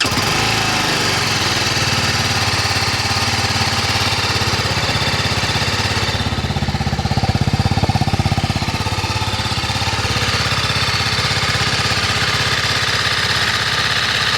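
TVS Apache RR310's single-cylinder engine running steadily. The owner hears a clatter ('claqueteo') louder than normal and suspects something knocked loose in the fall, either the chain tensioner or valves needing adjustment.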